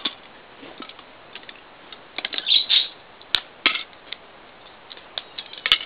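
Plastic LEGO bricks clicking and clacking as they are handled and pried apart: scattered sharp clicks, with two louder snaps, one midway and one near the end.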